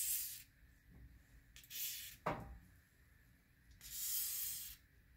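Aerosol can of WD-40 silicone spray lubricant hissing in three short bursts about two seconds apart, the last one the longest, with a single knock just after the second.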